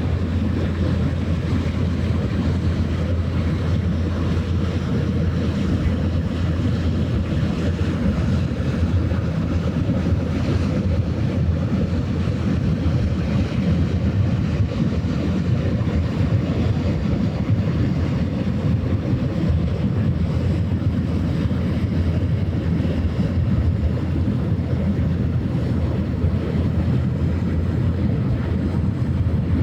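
Steady low drone of a passing ship's engine, with water and wind noise on the microphone.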